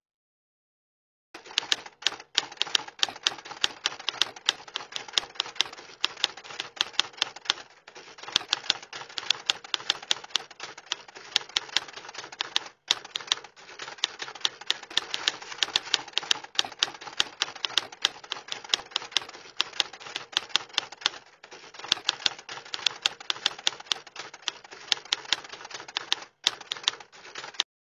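Typewriter sound effect: a fast, uneven stream of key clacks that starts about a second in, breaks off for a moment four times, and stops just before the end.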